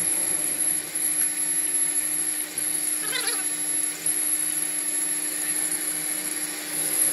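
Metal lathe running as a turning tool cuts across a welded steel tube, a steady machine hum and high whine over the noise of cutting.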